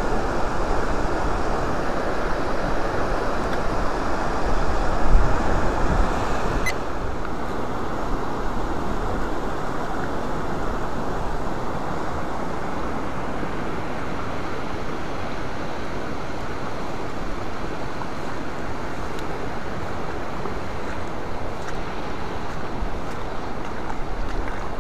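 Fast, high river water rushing over rapids: a steady, even noise that eases slightly about seven seconds in, with some wind buffeting on the microphone.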